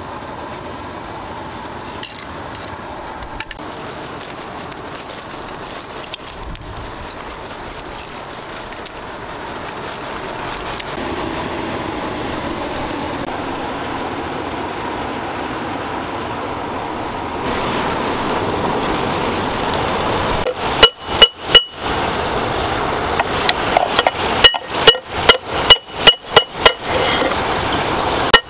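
Wood and charcoal fire burning in an open brick pit, a steady hiss with a few light crackles. About 21 seconds in, a hand hammer starts striking red-hot spring steel on a steel plate, flattening it: ringing metallic blows, four quick strikes, then after a pause a fast run of about nine.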